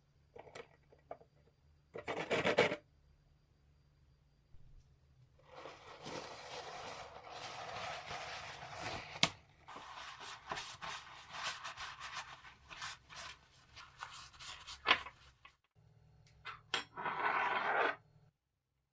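Hand rubbing and scraping on a part, as in sanding or cleaning during a restoration. A short burst comes first, then about ten seconds of continuous rubbing with scattered clicks, and one more short burst near the end.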